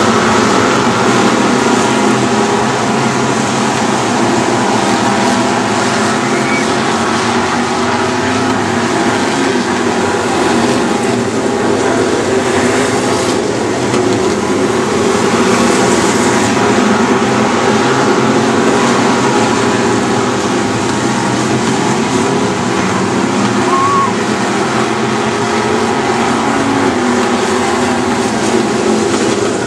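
A pack of dirt-track Super Stock race cars' engines running together at racing speed, loud and steady without a break.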